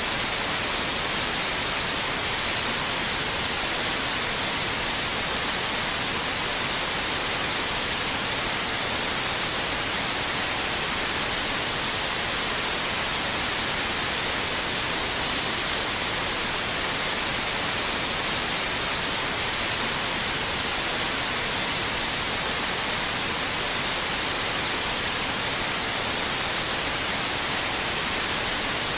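Steady white noise: an even, unchanging hiss that is strongest in the high range.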